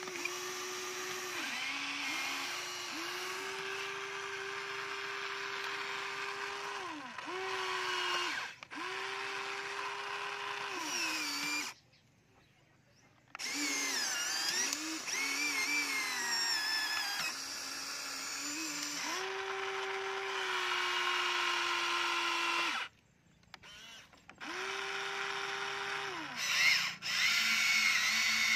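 Electric motors of a Huina radio-controlled toy excavator whining as the boom, arm and bucket dig and swing, in stretches of a few seconds, each ending with a quick drop in pitch. The whine stops briefly about twelve seconds in and again about twenty-three seconds in.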